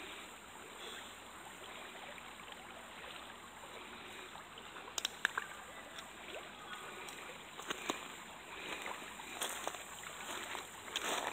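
Steady rush of a shallow river flowing over a rocky riffle, with scattered sharp clicks of stones and footsteps crunching on the gravel bank, first about halfway through and more often near the end.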